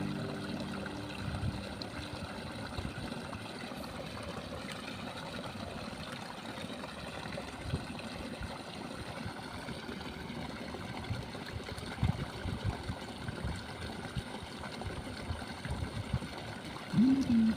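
Steady hiss of running water. A voice with rising and falling pitch starts near the end.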